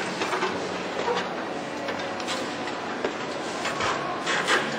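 Steady background noise of a large exhibition hall, with a couple of short knocks or clicks a little after four seconds in.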